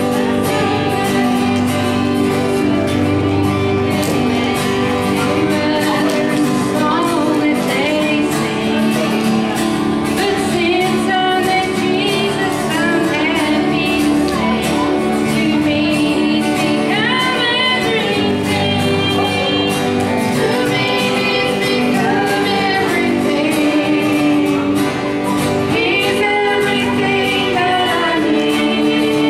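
A group of women singing a song together into microphones, accompanied by two acoustic guitars.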